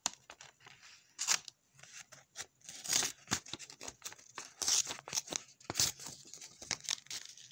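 Trauma shears cutting into a sheet of paper: irregular crisp snips and paper rustling and tearing, with a few louder cutting strokes spread through.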